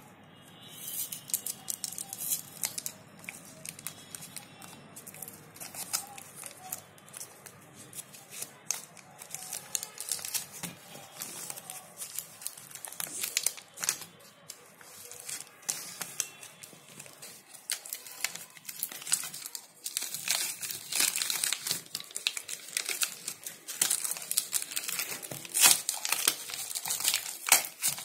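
A laundry soap bar's paper wrapper being torn and crinkled open by hand: irregular crackling and rustling that grows louder and denser in the last third.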